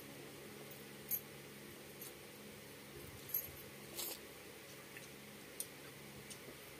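Mouth sounds of eating rice and curry by hand: chewing, with a few sharp lip smacks and finger-licking clicks, over a faint steady hum.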